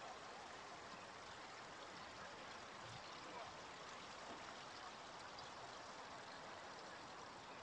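Faint, steady running water from a large fountain pool.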